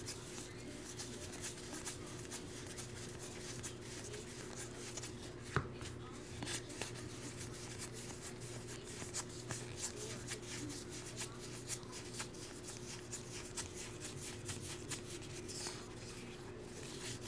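Stack of 2021 Topps Heritage baseball cards being flipped through in the hands: a run of soft card snaps and slides, one sharper snap about five and a half seconds in, over a steady low hum.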